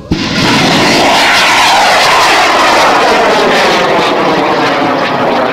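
High-power rocket's N-class motor igniting and burning at liftoff. It starts with a sudden crack, then a loud, steady roar with a whooshing sweep that falls in pitch over the first few seconds as the rocket climbs.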